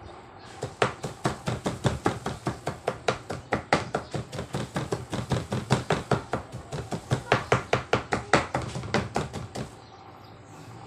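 Kitchen knife rapidly chopping banana blossom on a plastic cutting board, a fast even run of strikes that starts under a second in and stops about a second before the end. The blossom is being minced fine for patties.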